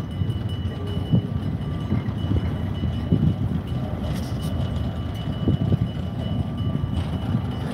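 Freight train boxcars rolling past on the rails: a steady low rumble of wheels and cars, with a few sharp knocks scattered through it.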